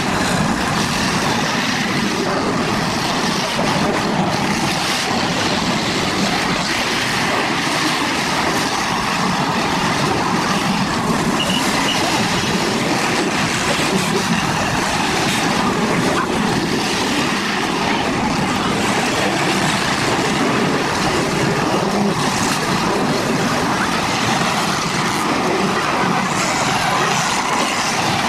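Demolition derby cars' engines running and revving together in a steady, loud din.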